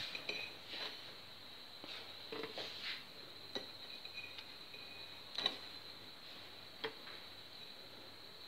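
Scattered faint light clicks and taps as cape gooseberries are dropped by hand into a glass blender jug onto ice cubes, the clearest one about five seconds in.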